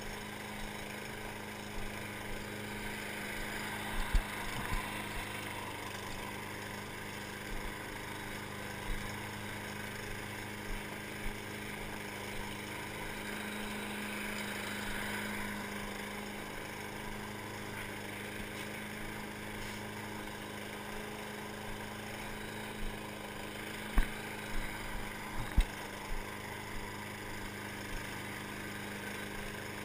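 Walk-behind gas lawn mower engine running steadily while mowing grass, with a few sharp knocks, the loudest about four seconds in and again near the end.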